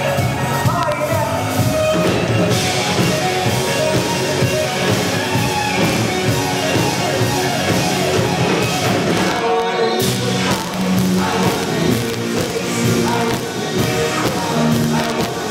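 Live rock band playing: electric guitar, drums and a male lead vocal. The band drops out briefly about two-thirds of the way through and comes back in on a sharp hit.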